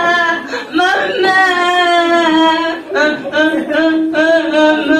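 A single voice singing a slow melody in long held notes, with short breaks about half a second and about three seconds in.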